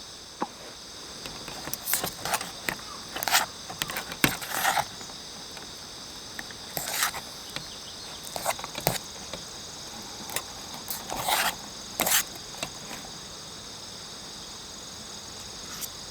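Insects chirping in a steady, high-pitched chorus, with short clicks and knocks now and then, most of them between about two and thirteen seconds in.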